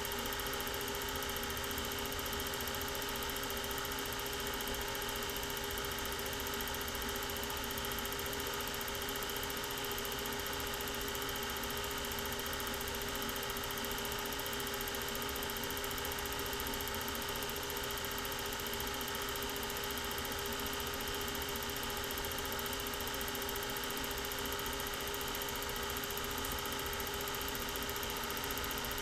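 Film projector running: a steady mechanical whir and hum with a constant tone.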